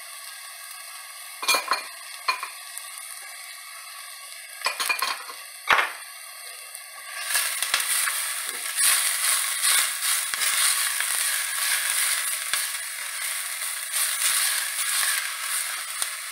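Chopped onion sizzling in hot oil in a stainless steel pan, with a few metal clinks in the first six seconds. About seven seconds in, the sizzle turns louder and brighter as the onion is stirred with a spatula.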